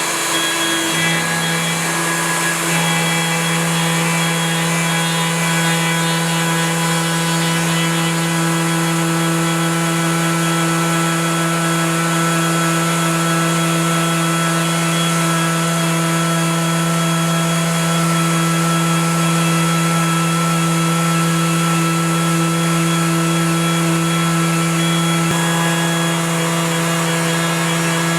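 Electric plunge router running steadily with a bearing-guided chamfer bit fitted, its motor whine holding one pitch throughout.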